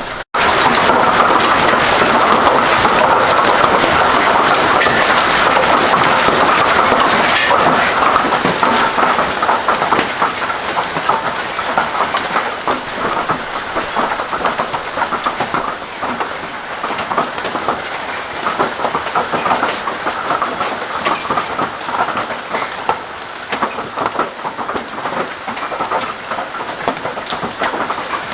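Golf-ball-sized hailstones pelting down with heavy rain, a loud, dense rattle of countless impacts. It is loudest for the first several seconds, then eases a little.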